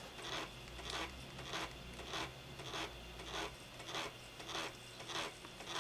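A 360K 5.25-inch floppy disk drive rasping in an even rhythm, about two short scraping strokes a second, as it struggles and retries formatting a disk. The owner takes this to be more than likely a bad disk.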